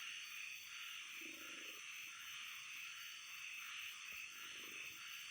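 Faint, steady night chorus of frogs with a high, even trilling above it, and a couple of lower calls about a second in and near the end.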